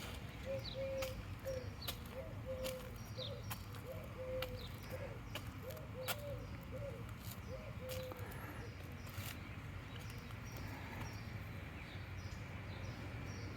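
Birds calling: a run of short, low, repeated notes through the first eight seconds or so, with scattered high chirps throughout, over a steady low hum.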